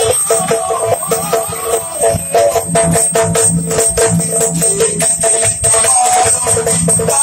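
Live Yakshagana accompaniment: a steady drone from a harmonium under fast drum strokes from a barrel drum, with metallic jingling throughout.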